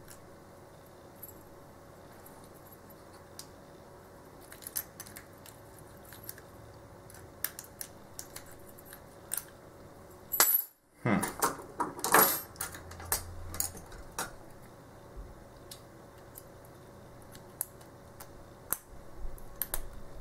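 Small metal lock parts and tools clicking and clinking as an Ace A527 padlock is taken apart by hand. The clicks are light and scattered; about halfway through the sound drops out for a moment, then comes a flurry of louder clinks and rattles.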